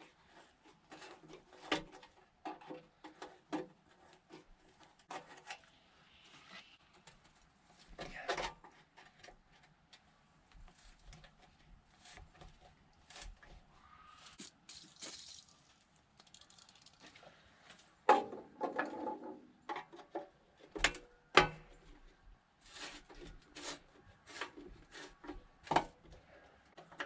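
Irregular clicks, knocks and scrapes of a screwdriver on the metal screws and panel of a backhoe as the screws are worked loose, with a louder scraping spell about two-thirds of the way through.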